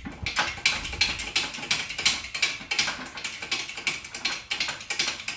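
Rapid, uneven metallic clicking and rattling of hand tools and press parts.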